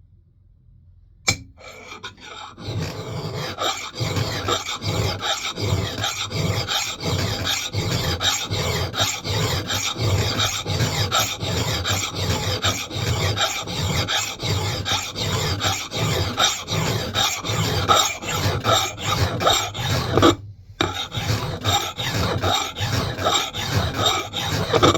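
Hand file rasping across the steel bit of an axe head in steady push strokes, about two a second, with one brief pause near the end: filing the bevel to raise a burr. A single sharp click comes just before the filing starts.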